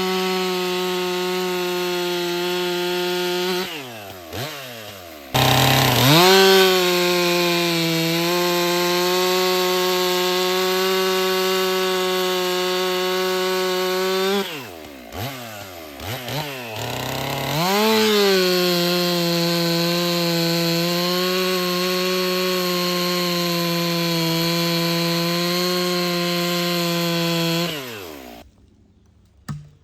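Stihl MS 400 C chainsaw's 66 cc two-stroke engine cutting through ash logs with a 20-inch bar and chain, holding a steady pitch under load. Twice the revs fall away and then climb back up, and near the end the engine cuts off abruptly.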